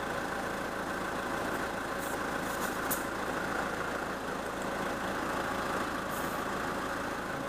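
Nissan Patrol's ZD30DI three-litre diesel engine idling steadily.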